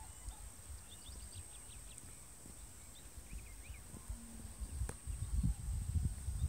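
Outdoor hilltop ambience: a few faint, short bird chirps over a low rumble of wind on the microphone, which turns gustier near the end.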